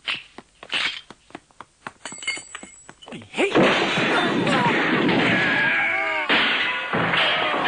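Metallic clicks of a revolver being reloaded. Then, from about three seconds in, a sudden loud barrage of gunfire with bullets striking and ricocheting off the walls.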